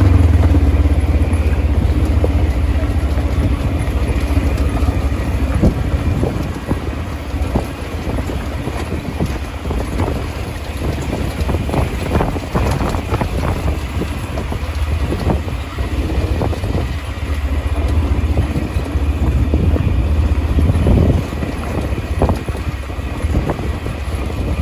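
ATV engine running steadily during a ride, a low rumble with frequent short knocks and rattles.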